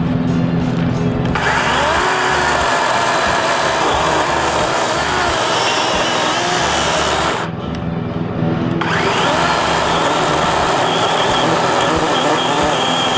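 DeWalt 20V Max XR DCCS620B brushless battery chainsaw running and cutting brush, stopping briefly about seven and a half seconds in and then cutting again, over background music with a steady beat.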